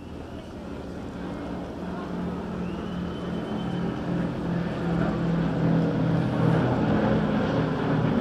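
Two Boeing B-17 Flying Fortresses passing overhead, their four-engine Wright R-1820 Cyclone radial engines making a low, steady drone. The drone fades in quickly at the start and grows steadily louder as they approach.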